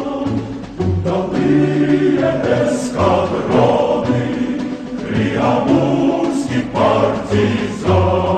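A choir singing a song with instrumental backing: long held sung notes over a repeating low bass note.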